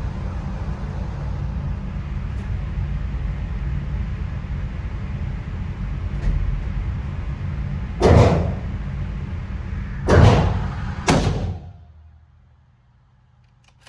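Three rifle shots, the second about two seconds after the first and the third about a second later, over a steady low hum that stops soon after the last shot.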